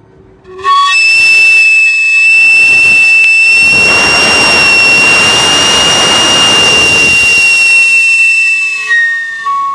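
Camote cart's steam whistle, blown by steam from the cart's wood-fired sweet-potato oven: one long, shrill, steady note with a rush of steam hiss that swells midway. Near the end the note drops in pitch and dies away.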